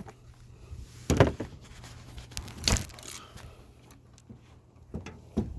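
A ratchet and 14 mm socket being worked on a wiper-arm nut: two sharp metal knocks about a second and a half apart, a few lighter clicks near the end, over a low steady hum.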